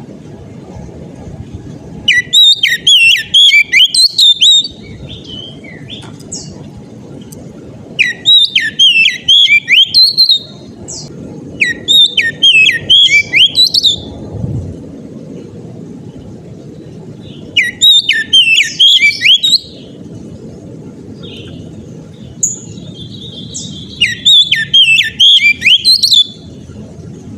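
Oriental magpie-robin (kacer) singing loud, rapid phrases of sliding whistled notes. It comes in five bursts of two to three seconds each with pauses between, over a steady low background hum.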